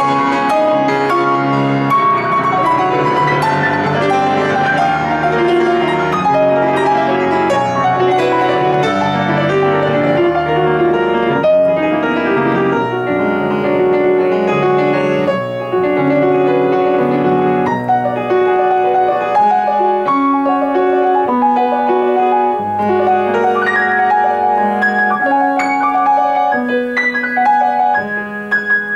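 Grand piano played solo: a continuous classical-style passage of many notes, sustained bass notes under a moving upper line.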